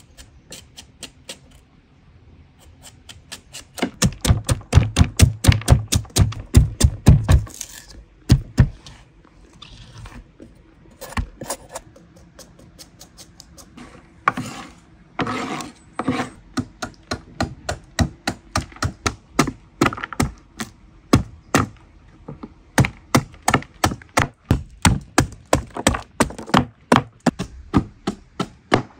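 Knife chopping on a wooden cutting board: a fast run of blows about four seconds in, then scattered strikes, and a steady chop about twice a second through the second half.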